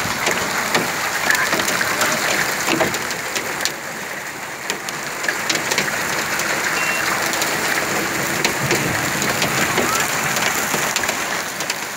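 Heavy rain with hail: a steady, dense hiss of downpour on a waterlogged street, peppered with many sharp ticks of hailstones striking.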